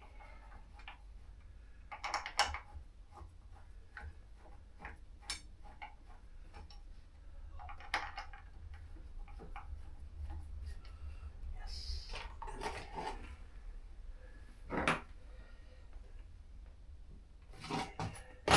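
Hand tools and small metal parts clinking and tapping in scattered short clicks, with a sharper metallic knock near the end.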